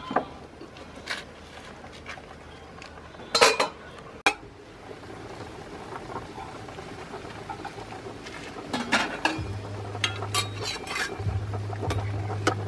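Metal ladle clinking and knocking against a stainless steel cooking pot of boiling chicken, a handful of sharp knocks with the loudest about three and a half seconds in. A low steady hum comes in about two thirds of the way through.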